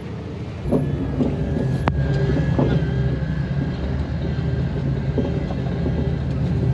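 Jeep engine running at low speed while crawling over a rocky trail, with a few sharp knocks and rattles as it goes over the stones. It gets louder about a second in.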